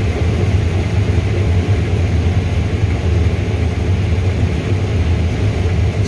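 Combine harvester running and harvesting corn, a steady low drone heard from inside the cab.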